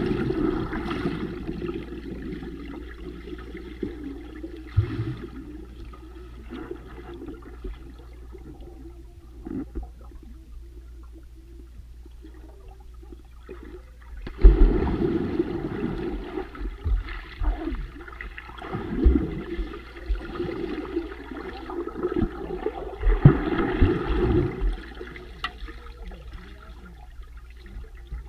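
Muffled rushing and bubbling water heard underwater as a swimmer plunges in and clouds of air bubbles stream past. Loud bubbling surges come at the start, about halfway through and again later, with quieter gurgling in between.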